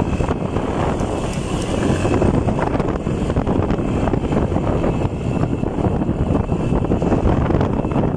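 Motorcycle being ridden at speed, its engine running under a steady rush of wind buffeting the microphone.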